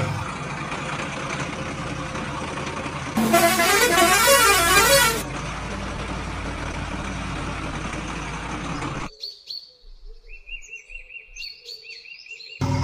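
Steady rushing noise, broken about three seconds in by a loud horn-like warbling tone that lasts about two seconds. After about nine seconds the noise stops and a quieter stretch follows with short repeated high chirps.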